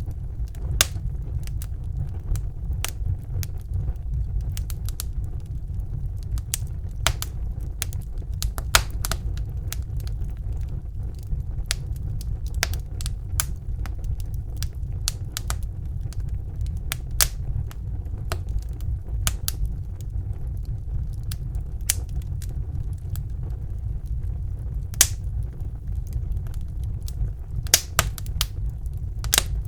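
Wood fire in a fireplace crackling: irregular sharp pops and snaps, a few louder than the rest, over a steady low rumble.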